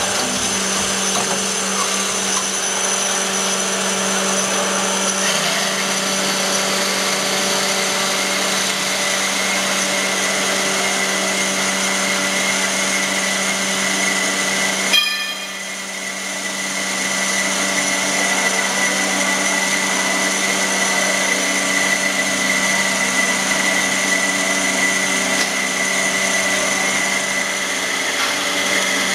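ITL LMGA 200 automatic band saw running steadily as its blade cuts through a solid round metal bar. About halfway through there is a sharp clack, then the sound dips briefly and builds back up.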